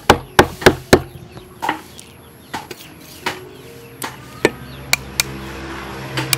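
Cleaver cutting raw beef and knocking on a wooden chopping board: a quick run of four sharp knocks in the first second, then single knocks every half second to a second.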